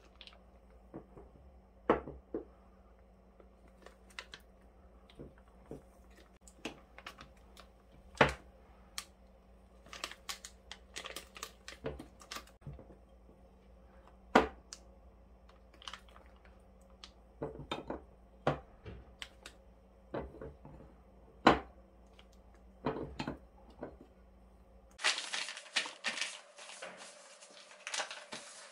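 Spatula scraping and tapping against a glass beaker while thick soap batter at trace is scooped into a plastic piping bag, with the bag crinkling; a few sharper knocks stand out among light clicks. About 25 s in, a denser rustle of the plastic piping bag as it is pressed flat on a table.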